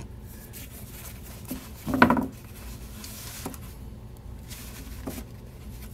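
Plastic oil drain pan being slid and nudged into place on paper under a car, with light rubbing and clicks and one louder bump about two seconds in.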